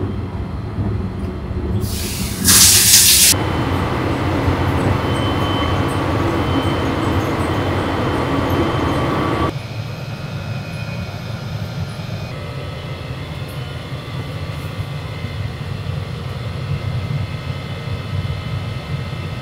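Sunrise Izumo sleeper train, a 285 series electric multiple unit, running with a steady low rumble. A loud hiss bursts out about two seconds in and lasts over a second. The sound shifts abruptly to a quieter running noise about halfway through.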